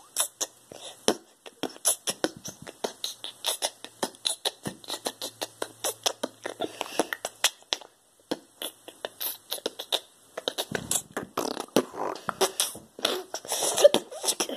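A boy beatboxing: a fast run of sharp mouth clicks, hi-hat-like ticks and snare-like hits, with a brief pause around the middle and fuller, deeper mouth sounds in the last few seconds.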